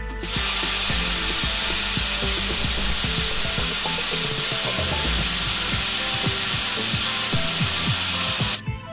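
Angle grinder running with its disc grinding the end of a threaded steel bolt, a loud steady hiss of steel on the abrasive disc. It starts just after the beginning and cuts off shortly before the end.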